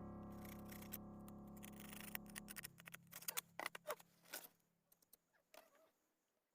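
Background music fading out, followed by a scattering of faint sharp clicks and taps over a couple of seconds, then near silence.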